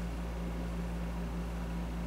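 Steady low hum with a faint even hiss: room background noise, which the owner puts down to air conditioning or a fan.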